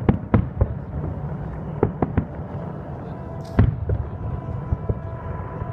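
Fireworks salute: a string of sharp bangs at irregular intervals over a low rumble, with one louder bang about three and a half seconds in.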